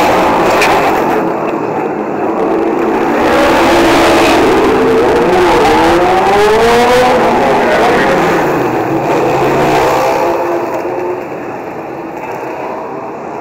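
Racing motorcycle engines passing at high revs, their pitch rising and falling as they go by, over a steady rushing noise. It gets quieter near the end.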